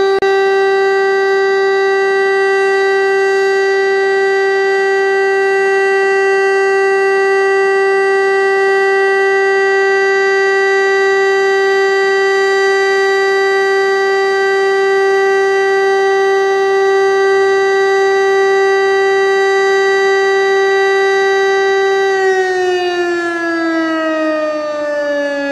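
DS 977 civil-defence siren sounding the steady test tone of a Czech siren test: one constant pitch with strong overtones. About three and a half seconds before the end, the pitch begins to slide steadily downward.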